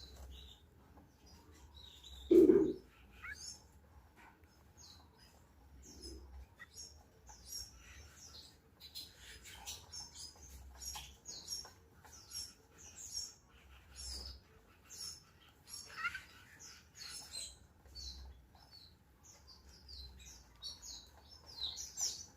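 Canaries chirping in short, high notes, more and more often toward the end. A single loud low thump about two and a half seconds in.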